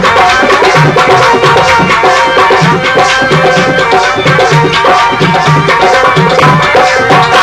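Instrumental Rajasthani folk music: a hand drum plays a steady beat, with pairs of low strokes a little under a second apart, under sustained melodic tones.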